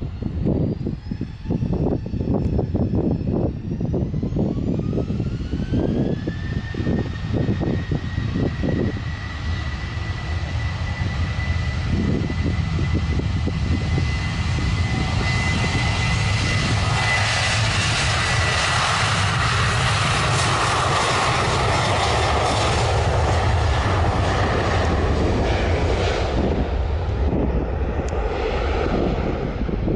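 Twin-engine jet airliner's engines spooling up, a whine rising over several seconds and then holding at a steady high pitch, while the broad engine noise builds to full takeoff thrust and is loudest about two-thirds of the way through before easing. Wind buffets the microphone in the first several seconds.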